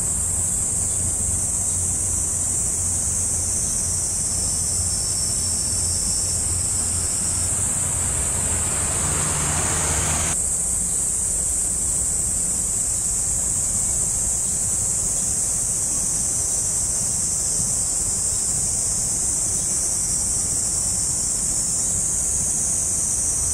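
Insects calling in a steady high-pitched drone over a low rumble of wind and water. A rushing noise builds from about eight seconds in and cuts off abruptly a couple of seconds later.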